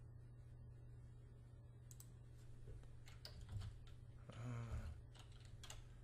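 Faint, scattered clicks of a computer mouse and keyboard at a desk, over a steady low hum, with one brief low vocal sound from the man about four and a half seconds in.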